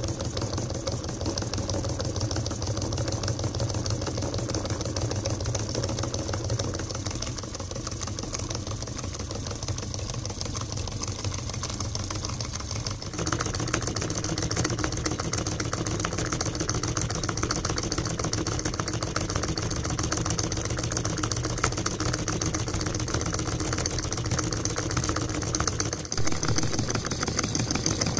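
Homemade solenoid engine running: a copper coil wound on a syringe drives a neodymium-magnet plunger and crank to spin a flywheel, making a rapid, steady mechanical clatter. It gets louder about halfway through.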